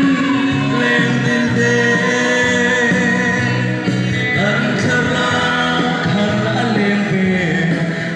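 A male singer singing a Chin-language gospel song into a microphone over instrumental backing music, amplified through a PA loudspeaker.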